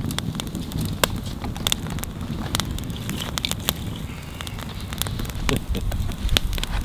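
Wood campfire crackling, with frequent sharp irregular pops over a low rumble.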